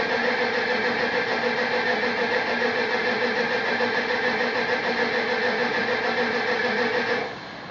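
1969 Dodge Super Bee's engine sounding steadily with an even pitched drone, cutting off abruptly about seven seconds in.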